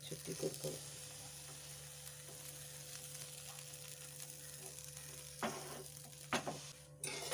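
Appam batter sizzling steadily in a hot non-stick pan on a gas burner. A few short knocks and scrapes come near the start and again near the end as the pan is lifted and swirled.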